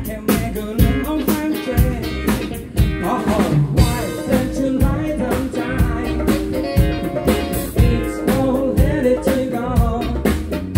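Live funk band playing, with a male lead vocal singing over a drum kit keeping a steady beat, electric guitar, saxophones and keyboard.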